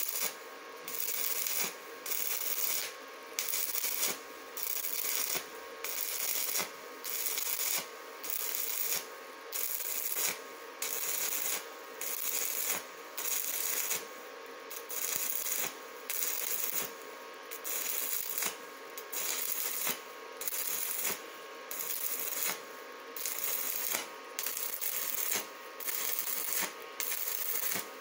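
Stick (MMA) welding arc from a 2.5 mm rutile electrode on an inverter welder, crackling and sizzling as it fills a wide root gap in a steel pipe. The sizzle swells and drops in a steady pulse a little more than once a second.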